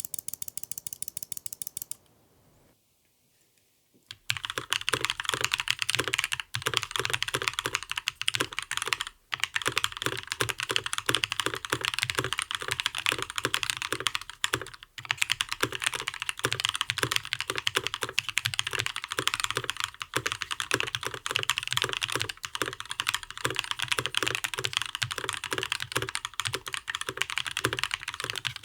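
Fast, continuous typing on a custom mechanical keyboard with lubed Gazzew Linear Thock linear switches, an aluminium plate and ePBT Soju PBT keycaps. The typing starts about four seconds in, after a short tonal sound and a brief pause.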